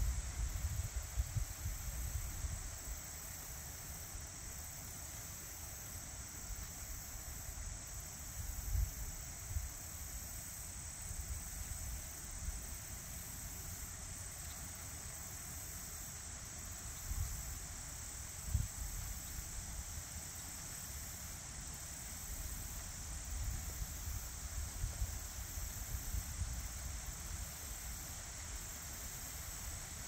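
Wind buffeting the microphone in low, uneven gusts, over a steady, high-pitched insect chorus.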